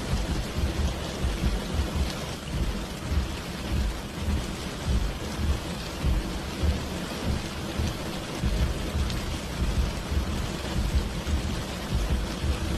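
Steady heavy rainfall, with a deep rumble that swells and fades underneath.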